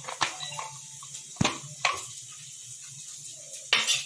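Stainless-steel spoon clinking against a small steel bowl of mixed sauce: four sharp clinks spread over a few seconds, the loudest near the end, over a faint low hum.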